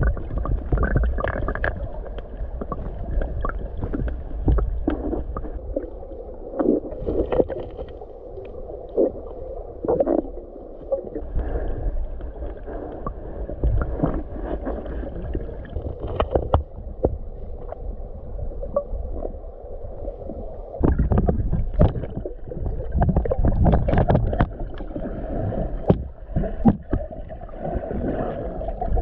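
Muffled underwater sound of a flowing mountain river, heard through an underwater camera: a steady low rush with gurgling bubbles. Over it are irregular clicks and knocks of stones being moved by hands searching among rocks for crawfish, busier in the last several seconds.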